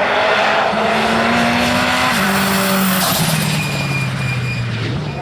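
Hillclimb race car's engine dropping in pitch in several steps as it downshifts under braking, the note sliding lower between shifts.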